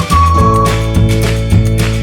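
Background music with a steady beat and bass, a whistled or flute-like melody trailing off early on.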